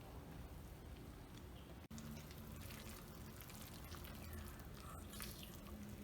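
A spoon faintly stirring wet carrot cake batter in a bowl, with soft scrapes.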